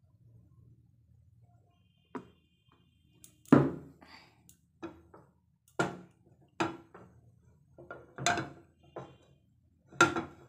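A series of sharp knocks and clatters, roughly one a second, starting about two seconds in after a faint hum; kitchen utensil handling at the stove.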